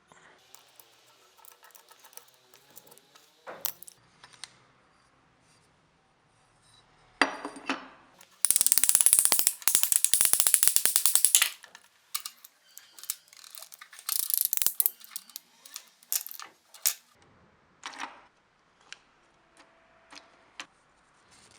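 Workshop handling sounds of metal tools and parts: scattered clicks and knocks, with a loud spell of rapid, dense clicking about eight seconds in that lasts some three seconds, and a shorter one a few seconds later.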